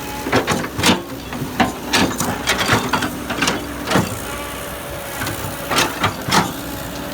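Heavy construction machinery at work: a diesel engine running steadily under a string of irregular knocks and clanks, like metal and rock striking.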